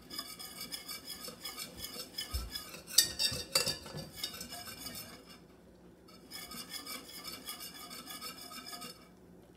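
Metal wire whisk scraping and clinking around a stainless steel saucepan in quick repeated strokes, working flour into melted butter for a roux. There is a short lull about halfway through, and a couple of louder clanks against the pot come around three to four seconds in.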